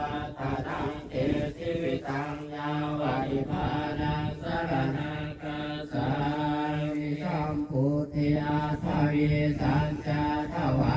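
Buddhist monks chanting Pali verses together in unison, held on one steady low pitch with short breaks for breath.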